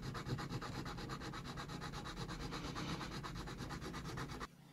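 Diamond needle file rasping back and forth across a small die-cast model car's base in rapid, even strokes, cutting a channel in it. The filing stops suddenly near the end.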